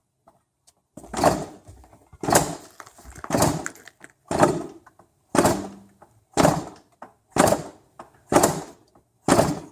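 Yamaha Banshee 350 twin-cylinder two-stroke being kick-started over and over, about one kick a second, nine in all, each a short turnover that dies away with no firing in between. The engine won't catch, which the owners put down to stale fuel left in the carburettor bowl after six months of sitting.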